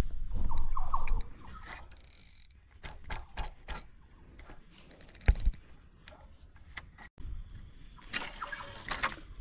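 Steady high drone of insects, with scattered knocks and rustles over it: a low rumble in the first second, a sharp thump about five seconds in, and a short noisy patch near the end. The drone stops abruptly about seven seconds in.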